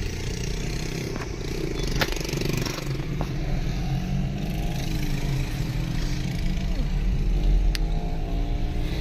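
Vehicle engine running with a steady low drone, its pitch gliding slowly up and down through the middle, with a few sharp clicks.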